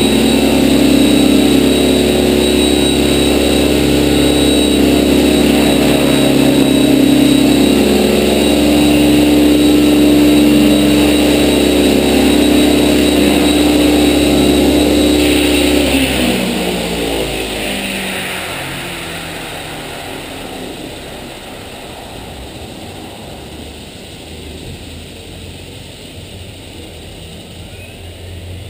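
Align T-Rex 600E Pro electric RC helicopter hovering, a steady whine from its motor and rotor blades. About halfway through, the pitch slides down and the sound fades as the rotor spools down.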